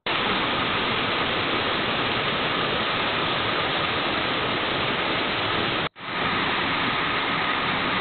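Small forest waterfall rushing over rock into a pool, a loud, steady, even hiss of falling water. It breaks off for an instant about six seconds in and comes straight back.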